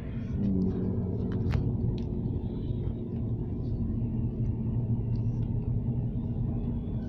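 Steady low rumble of a running car engine with a constant hum, and a few faint clicks.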